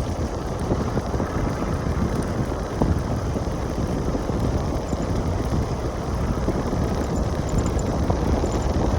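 Steady low rumble of wind buffeting the microphone, with no clear tone or rhythm.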